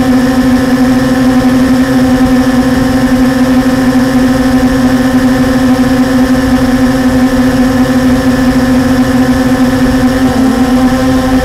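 Blade 350 QX quadcopter's electric motors and propellers buzzing steadily, heard from a camera mounted on the craft. The pitch dips briefly about ten seconds in, then recovers.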